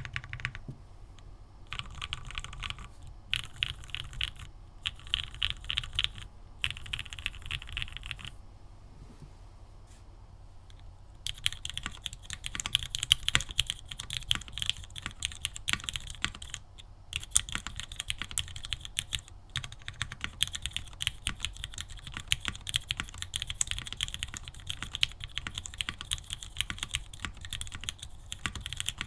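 Typing on a Mode Tempo 60% mechanical keyboard: four short bursts of rapid key clacks, a pause of about three seconds, then steady fast typing.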